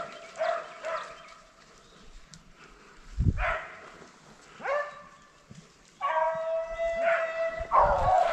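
Rabbit-hunting dogs baying on a rabbit's trail: several short bays, then longer drawn-out bays near the end.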